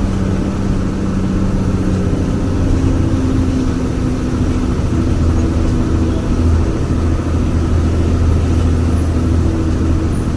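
Jaya Guna bus engine running under way with a steady low drone, the 'snoring' (ngorok) growl the bus makes all along the road. Its pitch shifts about two seconds in, as the engine speed changes.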